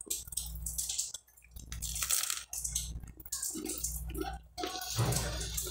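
Close-up chewing of toasted bread with mortadella: irregular crisp crunches of the toast crust between the teeth.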